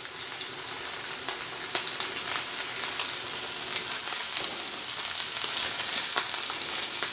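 Duck breasts searing skin side down in a hot cast iron griddle skillet: a steady sizzle as the skin crisps, with scattered small pops and spits of fat.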